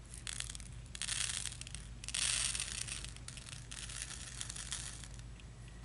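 Thin plastic crinkling and rustling in several bursts, the loudest about a second in and again just after two seconds, as diamond-painting supplies are handled.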